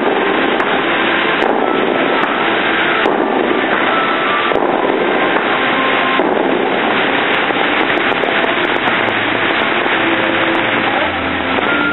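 Rushing, hissing spray of the Bellagio fountain's water jets shooting up and falling back into the lake. A fresh rush begins abruptly about every second and a half for the first six seconds, then the sound runs steady.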